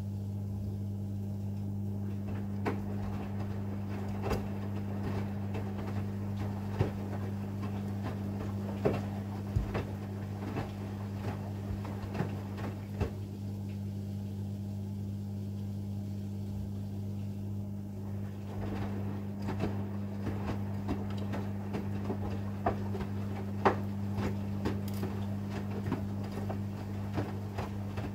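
AEG 8000 Series Lavamat front-loading washing machine mid-programme: a steady motor hum while the drum turns the load in two spells of irregular knocks and clicks, with a few seconds' pause between them as the drum stops to reverse.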